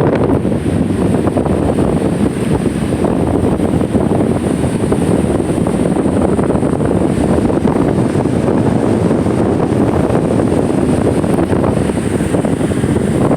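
Wind buffeting the microphone, a loud steady rumble, over surf washing up the beach.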